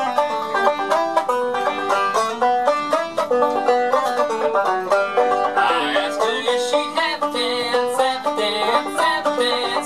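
A banjo played solo, picked in a quick, continuous run of notes.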